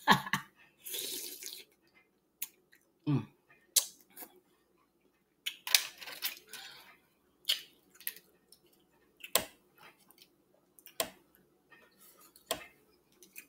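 Close-up eating sounds of a saucy seafood boil: wet chewing and lip smacking broken by scattered short, sharp clicks.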